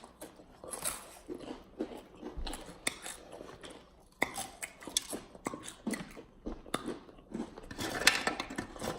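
Chewing and crunching of crunchy corn chips (Takis and hot fries), in many short, irregular crunches from two people eating fast.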